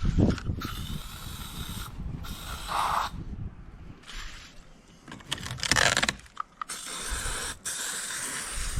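Mechanical clicking and scraping of tool work on the boat's wooden parts, with a louder scraping burst about six seconds in.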